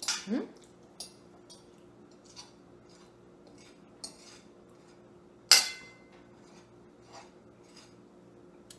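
Metal fork scraping and tapping on a ceramic dinner plate in scattered light clicks, with one sharp ringing clink about five and a half seconds in.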